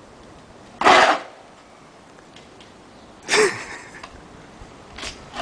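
Skis scraped over asphalt in short swishes for foley: two loud, quick scrapes, about a second in and just past three seconds, and a faint brief one near the end.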